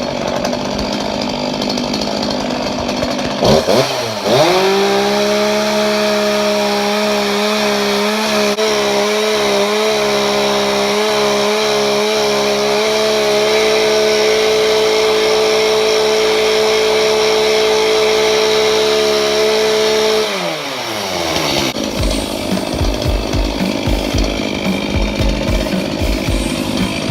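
Gas chainsaw running: revved up about four seconds in and held at a steady high speed for some sixteen seconds, its pitch wavering slightly now and then, then dropping back down about twenty seconds in.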